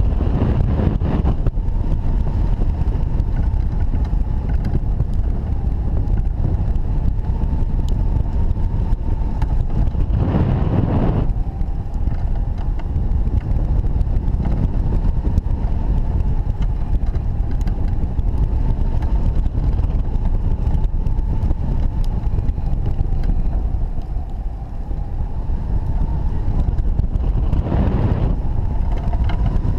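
Airflow buffeting the microphone of a camera mounted on a hang glider's wing in flight: a loud, steady low rumbling rush, with stronger gusts about a second in, around ten seconds in, and near the end. A faint high whistle that wavers slightly in pitch sits above the rush.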